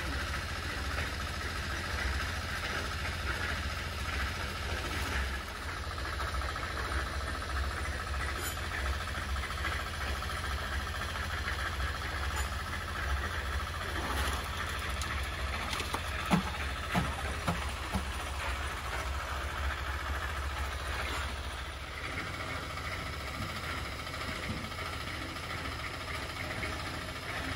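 An engine running steadily at idle, with a few sharp knocks about halfway through.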